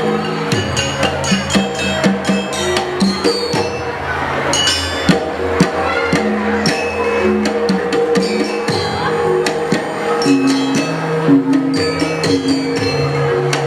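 Dance accompaniment music: a melody of held pitched notes over frequent sharp percussion strikes.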